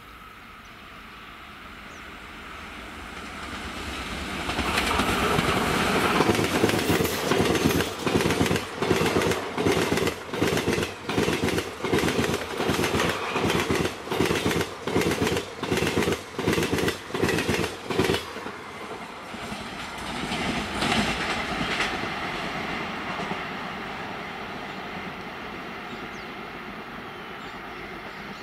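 Indian express passenger train passing at speed: a rising rumble as it nears, then the coach wheels clacking over rail joints at about two beats a second as the coaches go by, fading away after the last coach passes.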